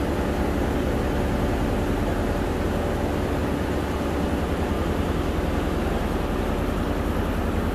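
Barcelona Metro Line 3 train moving along the platform in an underground station: a steady rumble of wheels and running gear with a faint hum.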